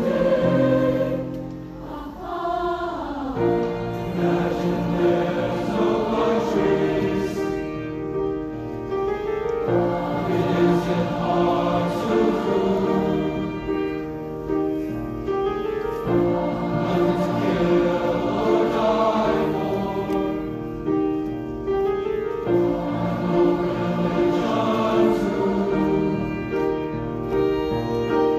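High school choir singing in harmony, held chords moving from phrase to phrase with short breaths between phrases.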